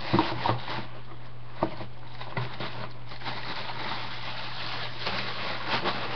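Handling noises from football boots: a few short knocks and taps, mostly in the first half and again near the end, over a steady low hum.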